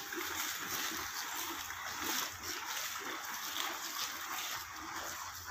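Ayrshire cows munching fresh-cut berseem (Egyptian clover): a steady crunching and rustling as they pull and chew the green fodder.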